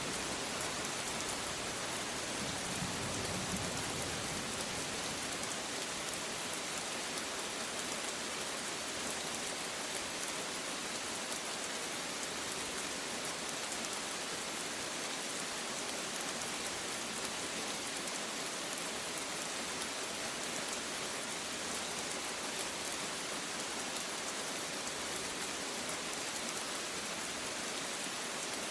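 Steady rain falling, with a brief low rumble of thunder about three seconds in.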